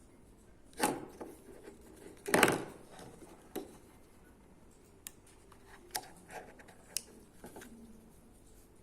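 Handling noises on a small object: two louder knocks or rubs near the start, then a few scattered sharp clicks.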